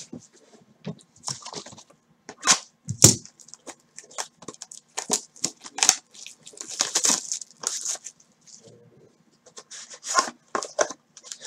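Wrapped trading-card packs and their cardboard box being handled by hand: irregular short rustles, crinkles and clicks.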